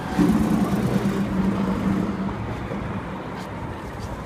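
City street traffic: a passing bus's engine drones steadily, loudest in the first couple of seconds and then fading, over a constant hum of traffic.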